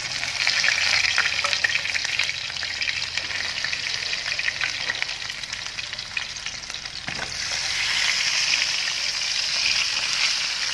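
Battered chicken pieces sizzling and crackling in hot oil, the frying noise easing a little midway and growing louder again about eight seconds in.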